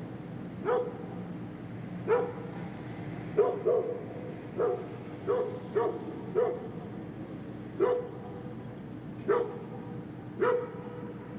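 Dogs barking in the distance: about eleven short single barks at irregular intervals, some coming in quick pairs, over a steady low background hum.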